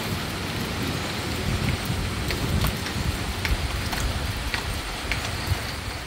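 Steady rain falling on standing floodwater, with single drops landing close by and heard as scattered sharp taps through the middle of the clip.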